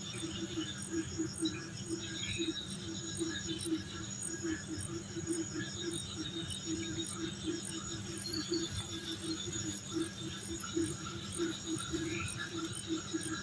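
Night insect chorus: several high, rapidly pulsing chirps, each held at a steady pitch, over a lower, uneven pulsing call.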